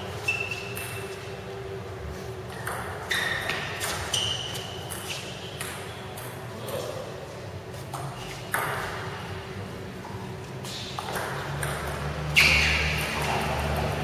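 Table tennis ball bouncing and being struck, heard as an irregular scatter of sharp clicks, several followed by a brief ringing ping. The loudest click comes near the end.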